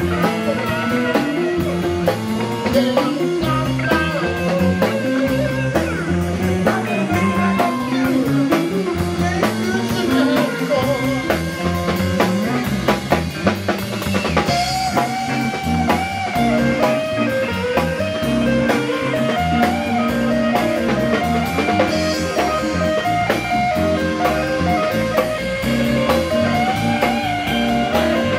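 Live rock band playing an instrumental passage on electric guitar and drum kit, with long held, wavering high notes from about halfway through.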